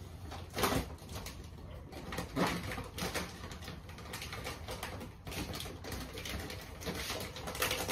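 Adhesive vinyl car wrap being peeled off a car door panel: intermittent rustling and crackling, with a louder burst near the end.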